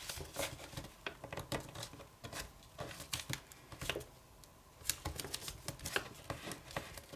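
Sheet of kami origami paper being folded and creased by hand: faint, irregular crackles and taps as a flap is folded up and the crease pressed flat with the fingertips.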